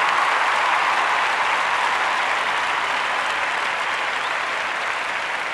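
A group of people applauding with steady, dense clapping that slowly fades.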